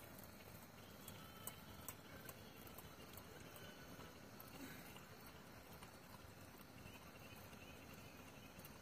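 Near silence: faint background hiss with a few soft clicks in the first two seconds.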